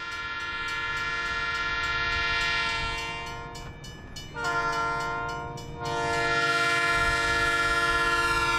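Train horn sounding in long, steady blasts over the low rumble of an approaching train. There are short breaks about four seconds in and about six seconds in, and the last blast is still sounding at the end.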